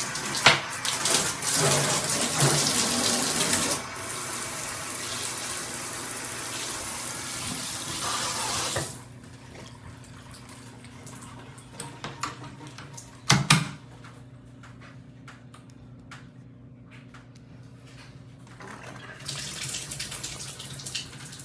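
Water spraying from a shower head, with a few knocks in the first seconds. The flow shuts off about nine seconds in. After a single loud knock in the quieter stretch, it comes back on near the end.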